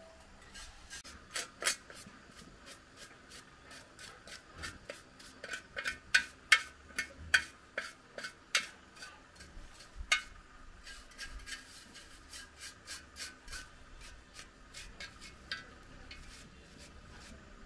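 Metal tool scraping and rubbing over the perforated metal drum and housing of a rice grain separator, in quick, uneven strokes that are loudest in the middle.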